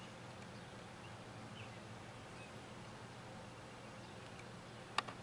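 Quiet room tone with a faint steady hum, broken by a sharp click near the end and a smaller one just after.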